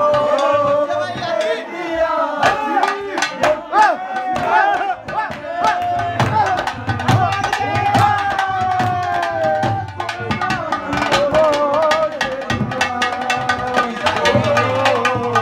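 Live Haryanvi ragni folk music: dholak and nakkara drums play a fast, dense rhythm under a wavering harmonium melody.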